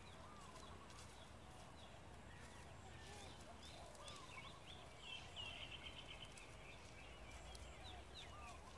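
Faint birdsong: scattered short chirps and whistles, with a brief rapid trill about five seconds in, over a low steady background rumble.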